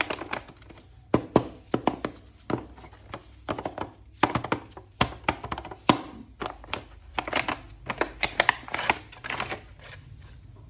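Hands handling a plastic action figure and its packaging: a busy run of irregular clicks, taps and crinkles, some in quick clusters.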